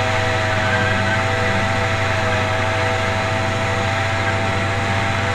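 Small gas engine on a gas-converted Razor scooter running at a steady, even speed while riding, a constant drone with no revving.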